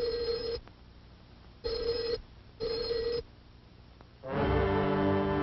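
Telephone ringer bell giving three short rings, the last two close together. Orchestral music with mallet percussion starts about four seconds in.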